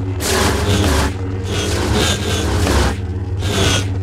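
Electronic lightsaber sound font, the Acolyte "Master Verne Star" font: a steady low blade hum, with about four swing whooshes rising and falling over it as the saber is swung. These are the font's smooth swings, with accent swings layered on top.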